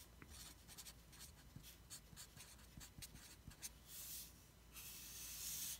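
Faint scratching of a felt-tip marker writing on paper: quick short pen strokes, then a longer continuous stroke near the end.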